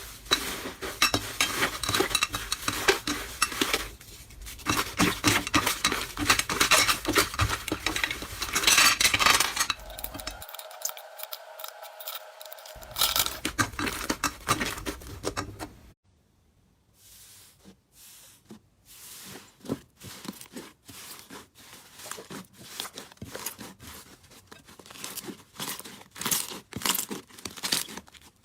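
Slime being squeezed, poked and stretched by hand: a dense run of sticky clicks, crackles and pops in several short clips. After about 16 seconds the sound is quieter and the pops come more separately.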